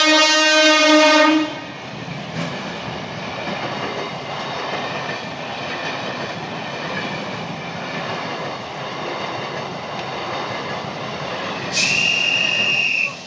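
Electric multiple-unit local train sounding its horn, which cuts off about a second and a half in, then running past with steady wheel-on-rail rolling noise. Near the end a brief shrill high tone sounds for about a second.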